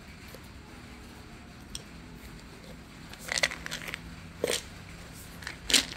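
A few short crunches and crackles, starting about three seconds in; the loudest comes near the end.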